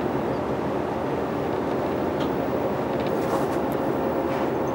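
Steady mechanical drone with a faint constant hum, running evenly without change.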